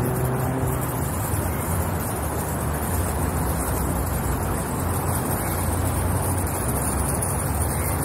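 Car engine running as a car moves slowly past, over steady low traffic rumble.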